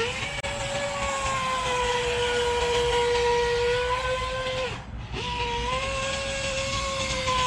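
Brushless electric motor of a remote-control speedboat whining steadily at high speed over a hiss of water and wind. It cuts out briefly about five seconds in, then picks up again with a rising pitch.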